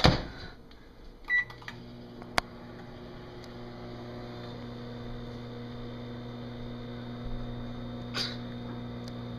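Microwave oven beeps once as it is started, then runs with a steady low hum, with a single sharp click shortly after it starts.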